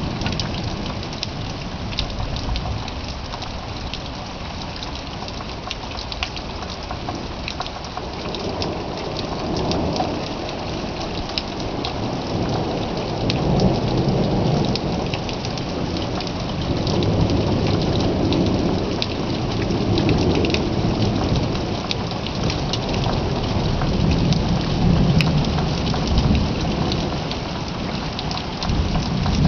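Steady rain falling, with close drops ticking sharply on a nearby surface. Low rumbles of thunder roll in from about a quarter of the way in and come back in several long swells.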